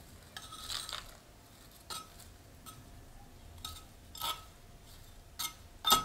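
Small metal hand trowel clinking and scraping against the rim and inside of a ceramic plant pot while potting soil is worked in. About six short clinks, each ringing briefly, with a soft soil scrape early on; the loudest clink comes near the end.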